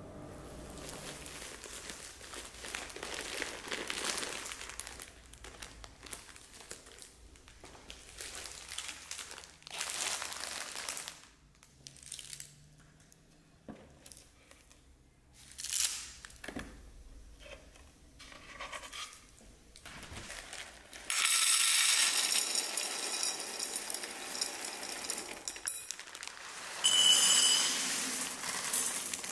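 Plastic produce bags crinkling and onions being handled and set down. About three-quarters of the way in, a steady pour starts as dried pinto beans stream from a plastic bag into a glass bowl.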